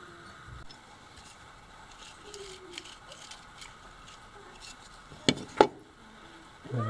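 Small handling taps of metal boat-steering rack-and-pinion parts on a wooden workbench, with two sharp clicks about a third of a second apart a little past five seconds in.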